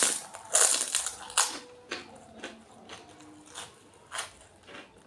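Close-up crunching and chewing of crisp, hollow fuchka (panipuri) shells: a loud crunch at the start, two more about half a second and a second and a half in, then softer chews spaced about half a second apart.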